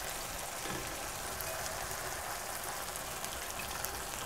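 Bolognese meat sauce sizzling softly in a pan with freshly added wet spaghetti: a steady crackling hiss with scattered faint ticks.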